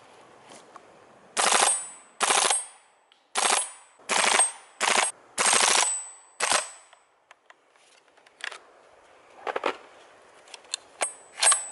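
G36 gas-blowback airsoft replica firing seven short full-auto bursts in about five seconds, each a rapid clatter of shots. A few quieter clicks and clacks follow near the end as the rifle is handled.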